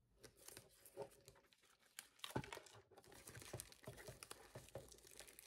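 Plastic shrink-wrap on a paper instant-noodle cup crinkling as fingers pick at it and peel it: faint, irregular crackles, a little louder and busier from about two seconds in.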